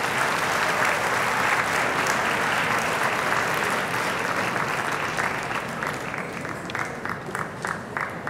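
Audience applauding, the applause thinning out to a few scattered claps near the end.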